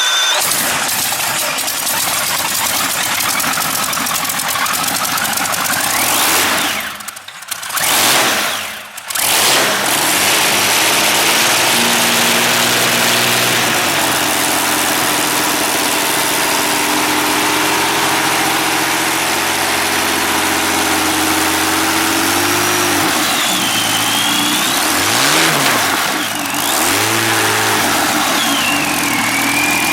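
Ranger V-12 aircraft engine running loud. Its sound drops away twice, about seven and nine seconds in, then picks up again and runs steadily, with the pitch swinging up and down with the throttle toward the end.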